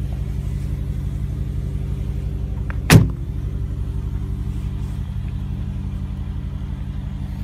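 Mercedes-Benz G-Class rear swing door slammed shut about three seconds in, one sharp bang. Under it, an engine idles steadily throughout.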